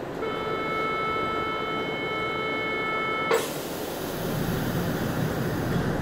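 Inside a CBTU Série 900 electric metro train: a steady electronic door-warning tone sounds for about three seconds and stops with a sharp clunk as the doors shut. A hiss of air follows for a couple of seconds while the train's rumble grows.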